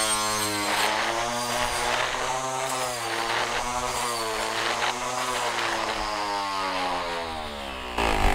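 Cordless 21V electric string trimmer's motor spinning a saw blade through tall grass: a steady whine that sags in pitch a few times as the blade catches the grass, then slides down and stops near the end, followed by a knock.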